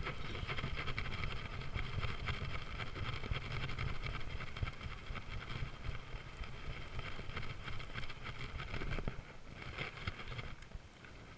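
Baitcasting reel being cranked to retrieve a lure, over a steady low rumble of wind and handling on the microphone.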